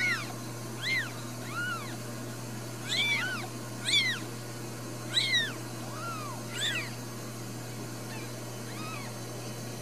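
Newborn Ragdoll kittens mewing: about a dozen short, high squeaky cries, each rising then falling in pitch, most of them in the first two-thirds, over a steady low hum.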